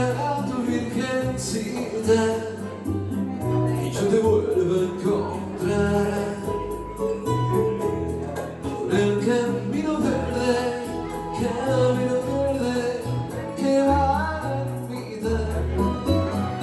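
Live music: a man singing over instrumental backing with a pulsing bass line.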